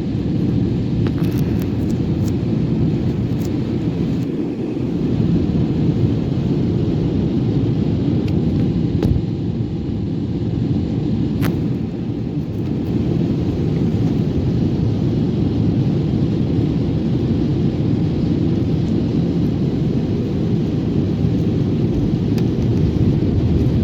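Steady low rumble of an airliner heard from inside the passenger cabin: engine and airflow noise, with a few faint clicks.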